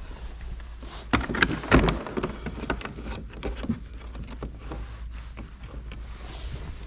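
Scattered clicks and knocks of a screwdriver and small tools being handled, the sharpest ones between about one and two seconds in, then lighter irregular tapping.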